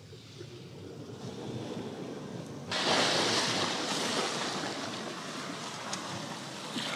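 Sea washing against a rocky shore, with some wind. It is faint at first, then comes in suddenly and much louder nearly three seconds in, easing off a little after that.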